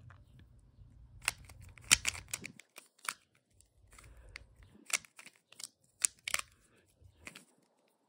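Plastic Rubik's Cube layers being twisted by hand, clicking and clacking in quick irregular turns. A fast flurry of clicks comes between about one and two and a half seconds in, then scattered single clicks.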